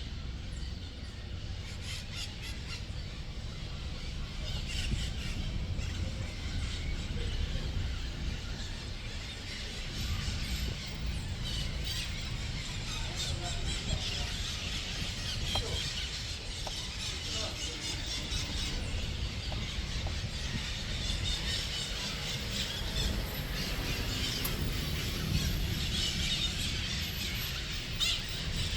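Outdoor nature ambience: many birds chirping and calling at once, shrill and continuous, over a steady low rumble.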